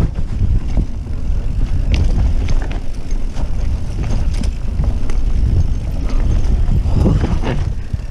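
Mountain bike descending a dirt trail at speed: wind buffeting the microphone over a steady low rumble of tyres on dirt and leaves, with scattered sharp clicks and rattles from the bike. The rushing noise swells near the end.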